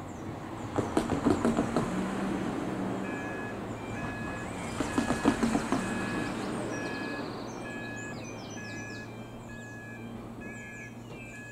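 Level crossing warning alarm beeping in an even repeating pattern, about one beep a second, from about three seconds in, over a steady low hum. Two short bursts of loud clattering knocks come about a second in and again about five seconds in, with faint bird chirps near the end.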